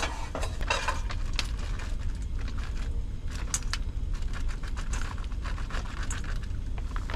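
Bagged fried rice poured into a hot wok-style pan on a propane camp stove, the grains landing and crackling in the pan as many small irregular clicks, over a low steady rumble.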